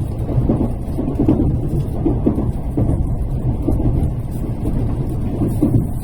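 Tokaido Shinkansen train running at low speed, heard from inside the passenger cabin: a steady low rumble with uneven thuds and swells from the wheels and track.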